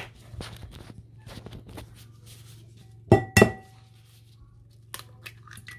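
An egg knocked twice against the rim of a ceramic mixing bowl to crack it: two sharp knocks about three seconds in, with a brief ring from the bowl. Lighter handling clicks come before them.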